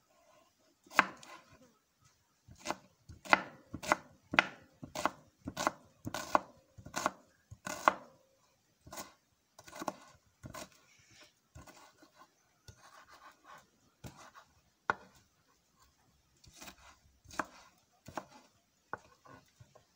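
Knife chopping onions: a steady run of sharp cuts, about one and a half a second, for the first eight seconds or so, then fewer, irregular cuts.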